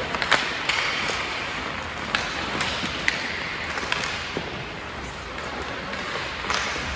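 Ice hockey sticks clacking against the puck and ice, with skates scraping, in an indoor rink. About half a dozen sharp knocks stand out over a steady noise, several of them in quick succession at the start.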